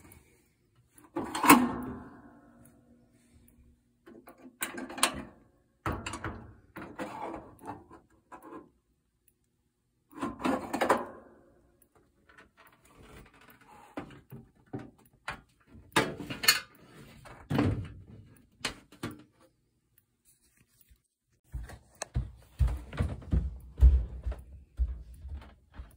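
Irregular knocks and clatters of hard objects being handled, the first ringing briefly, then a run of low thumps in the last few seconds.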